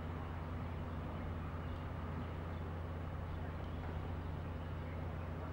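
Steady low drone of a distant pontoon boat's outboard motor, even in level throughout.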